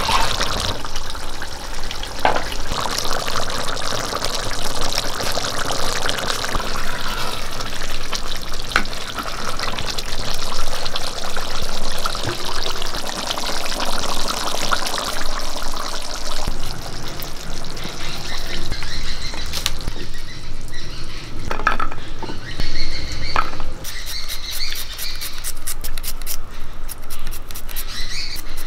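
Chicken curry bubbling as it simmers in an earthenware pot, a steady wet bubbling. Near the end come quick, rapid knife cuts as shallots are sliced by hand.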